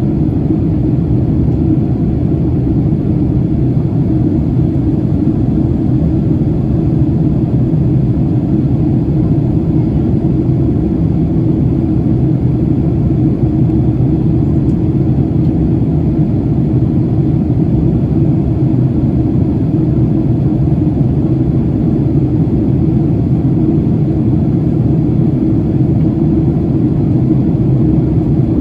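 Jet airliner cabin noise in flight: the engines and rushing air make a steady, loud, low rumble with no change.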